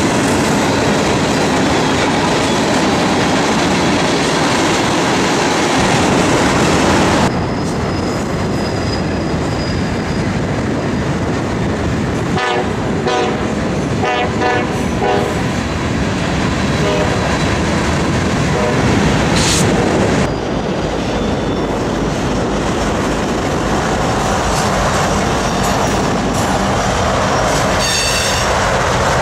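Freight train rolling past at close range: steady rumble and clatter of steel wheels on the rails as locomotives and then boxcars and covered hoppers go by. The sound changes abruptly about seven seconds in, and brief high wheel squeals come and go.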